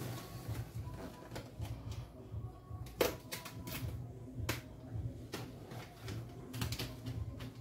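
Scattered light clicks and taps from a strip of wallpaper being handled and pressed flat on a tiled counter, a few sharper than the rest, over a low steady hum.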